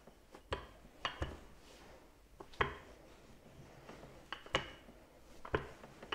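Wooden rolling pin rolling out folded puff pastry dough on a silicone mat, with about seven sharp, irregular knocks and clacks from the pin.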